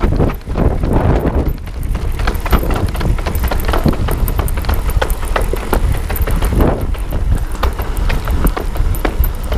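Electric mountain bike rattling and knocking as it rolls down stone-paved steps and cobbles. Rapid irregular clatter over a steady low rumble.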